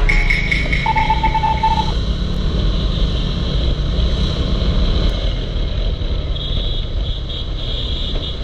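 Motorcycle on the move: a loud, steady engine and wind rush, with a brief steady tone about a second in.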